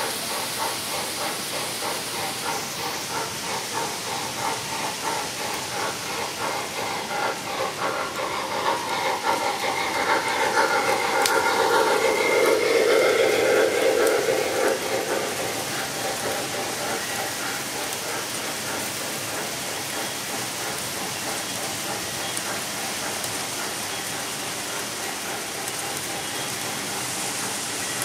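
O-gauge model of a Union Pacific Challenger steam locomotive running with its sound system on: steady steam hiss and chuffing with the train rolling on three-rail track, louder for a few seconds around the middle as it passes close.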